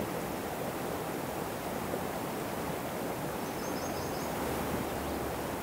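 River water flowing steadily over a shallow, rocky riffle.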